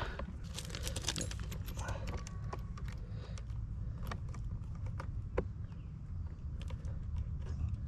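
Light, irregular clicks and taps of an insulated ground wire being handled and hooked onto a metal ground-rod clamp, with one sharper click about five seconds in. A steady low rumble runs underneath.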